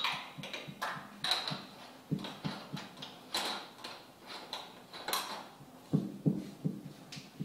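Kitchen clatter of dishes and utensils being handled at a counter: an irregular run of short clinks and light knocks, some with a brief ring, with a few duller knocks about six seconds in.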